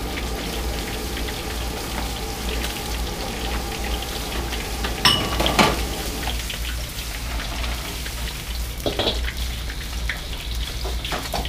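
Pieces of catfish deep-frying in a wok of oil, a steady crackling sizzle. A few sharp knocks sound about five seconds in and again near nine seconds.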